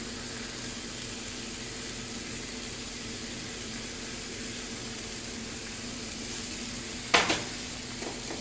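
Raw tilapia fillets sizzling steadily on the hot plates of an electric contact grill turned up to maximum, over a low steady hum. A single sharp knock about seven seconds in.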